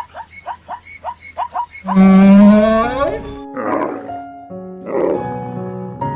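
A dog yipping in quick, short falling cries, then a cow's loud moo about two seconds in, followed by two rough, breathy grunts as piano music comes in.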